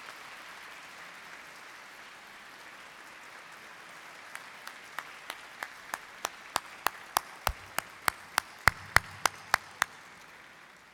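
Audience applauding steadily, fading out near the end. From about four seconds in, loud sharp claps close to the microphone stand out over it at about three a second, from the man at the podium clapping along.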